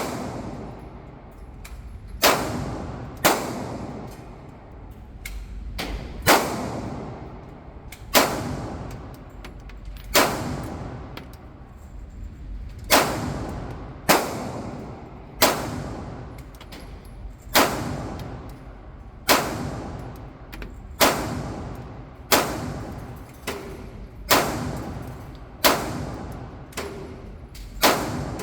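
Gunshots at a shooting range, fired singly at an unhurried pace of about one every one to two seconds, each crack followed by a short echoing tail.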